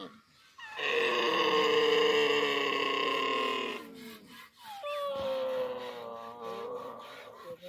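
Camel calling: a loud, long drawn-out moaning call about a second in that holds for nearly three seconds, then a second, quieter call a little later that slowly falls in pitch.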